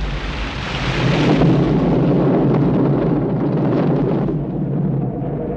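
Animated film sound effects: a loud, continuous rumbling crash like thunder. A hissing swell rises about a second in, and the top end falls away after about four seconds, leaving the low rumble.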